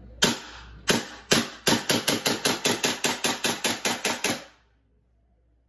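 Elite Force Glock 17 Gen4 gas blowback airsoft pistol firing on green gas. There are three spaced shots, then a quick string of about a dozen more at roughly five a second. Each shot is a sharp crack of gas and slide blowback with a short ring in the room. The shooting stops about four and a half seconds in.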